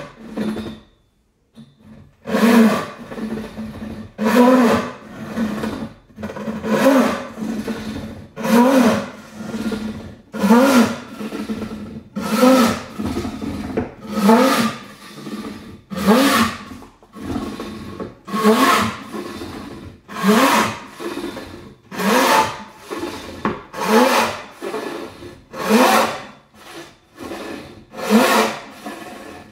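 700 mm ECE wooden frame saw with a fine-toothed Japanese turbo cut blade rip-cutting a board along the grain by hand. Long, steady strokes about every two seconds start about two seconds in, each carrying a hum that rises and falls in pitch.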